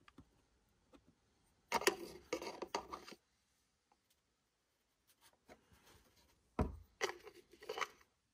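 Quiet scratchy tapping of a small paintbrush dabbing stain wash onto a rough plaster (hydrocal) surface, in a quick run about two seconds in. Near the end, a single knock and some rattly handling as the stain bottle and its cap are put down on the bench.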